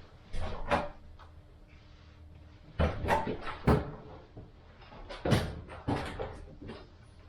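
Irregular sharp knocks and clunks in three short clusters: one under a second in, a louder pair about three seconds in, and more about five to six seconds in.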